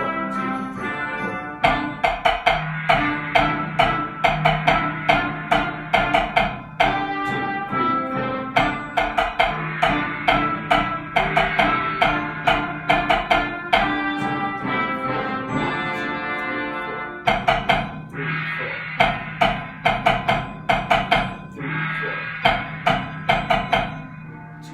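Band music with brass and wind instruments over a steady run of sharp percussion strikes, about two or three a second, which break off briefly a few times and stop just before the end.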